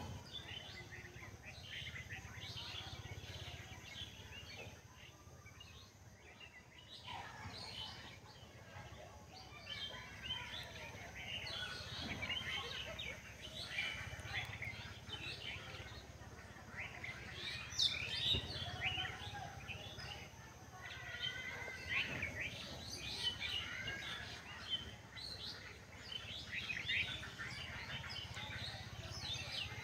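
Many small birds chirping and twittering continually, busier in the second half, over a faint low background rumble.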